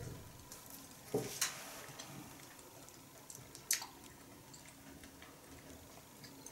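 Metal fork clicking against a china plate while eating: a few sharp clinks, about a second in, half a second later and near four seconds, with faint small ticks between.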